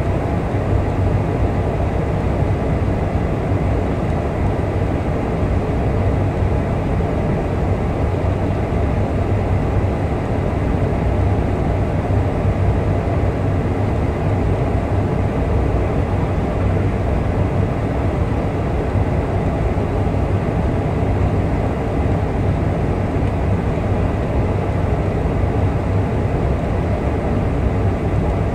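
Passenger-cabin noise inside a Boeing 747 descending on approach: a steady drone of engines and rushing air, with a low hum underneath.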